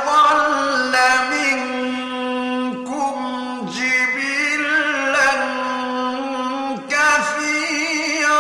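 A male Quran reciter's voice chanting in long, ornamented held notes, with short breaks for breath between phrases.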